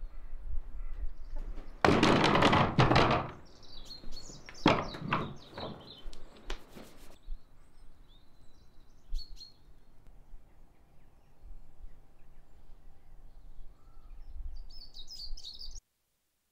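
A heavy old wooden door being shifted on a barn floor: a loud, rough wooden noise lasting just over a second about two seconds in, then several sharper knocks around five to seven seconds in. Small birds chirp on and off, and the sound cuts off abruptly near the end.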